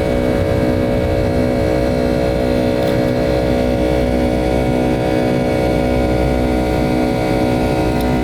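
Boeing 757-200 jet engines running steadily, heard from inside the cabin as a constant drone made of several fixed tones, with a pulsing beat about twice a second.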